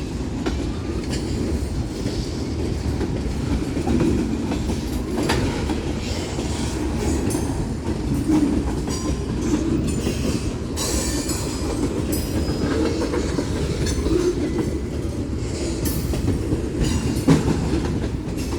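Freight train cars rolling past: a steady low rumble, with wheels clicking over rail joints at uneven intervals.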